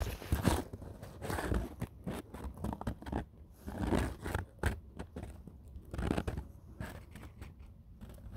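Desert-coloured camouflage net crinkling and rustling right against the microphone as its cut material is pushed and shifted, in irregular crunching bursts about a second apart.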